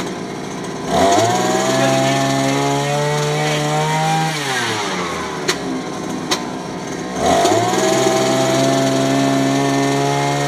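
Electric jackhammer breaking clay: it runs for about three seconds, winds down, and starts again about seven seconds in. Two sharp knocks come in the pause.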